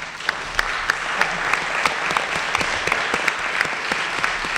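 Audience applauding steadily, many people clapping together.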